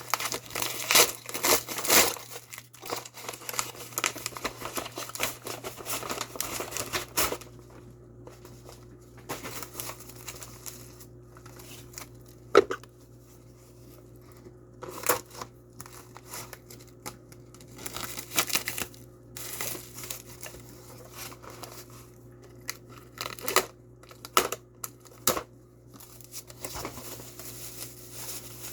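A mail package being opened by hand, with packaging crinkling and tearing. The sound comes in dense bursts for the first several seconds, then thins to scattered rustles and sharp clicks.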